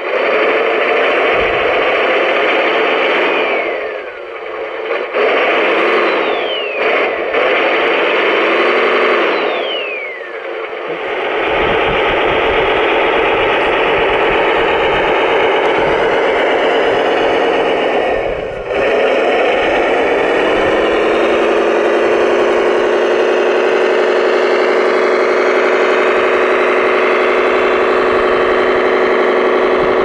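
Electric drive motors and gearboxes of radio-controlled construction models whining and running, with a few whines that fall in pitch in the first ten seconds, then a steady running tone from about twenty seconds in.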